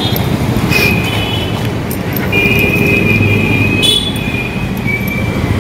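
Street traffic noise: a steady rumble of passing vehicles, with several long, high-pitched squeals laid over it.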